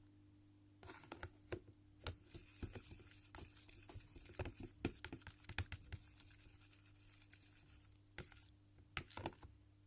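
A spoon stirring a runny soap mixture in a small plastic pot: soft scraping and sloshing with irregular clicks of the spoon against the sides, over a faint steady hum.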